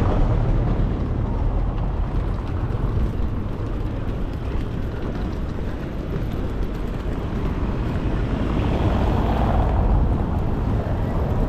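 Steady low rumble of vehicle noise, swelling slightly near the end.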